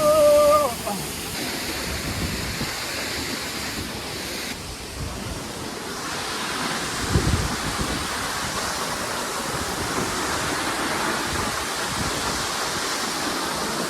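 Steady rush of a waterfall's falling water, with a single low thump about seven seconds in.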